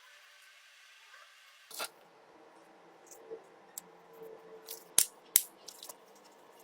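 Handling noise from small hard objects: a few sharp clicks and taps, the two loudest about five seconds in, half a second apart, with fainter ticks between.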